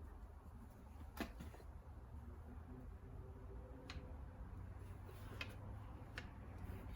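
A removed Hurst floor shifter being worked by hand, giving four or five sharp clicks at uneven intervals over a faint low hum.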